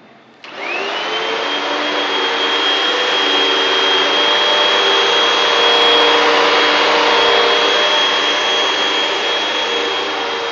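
Hoover vacuum cleaner switched on about half a second in, its motor whine quickly rising to a steady high pitch over a loud rushing hiss of air, then running steadily.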